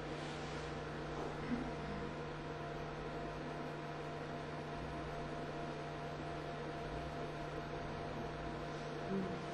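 Steady electrical hum over quiet room noise, with one brief small sound about a second and a half in.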